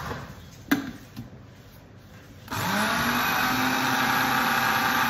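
Countertop blender starting about halfway in: the motor spins up quickly to a steady pitch and runs, chopping basil and walnuts for pesto. A single sharp click comes just under a second in.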